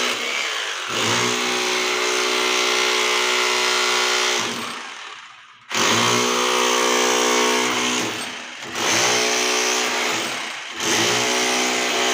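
An electric power tool run in four bursts, each starting sharply and winding down before the next.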